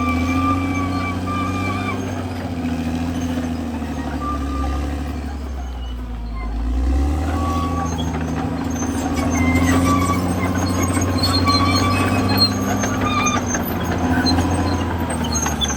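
CAT D6R XL bulldozer's diesel engine running under load while the crawler works. The engine note drops and quietens about five seconds in, then picks up again. Short high-pitched squeals come and go throughout.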